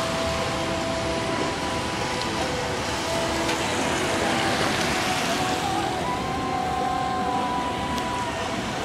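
Steady hiss of a car driving on a wet road, with a few faint held tones coming and going over it.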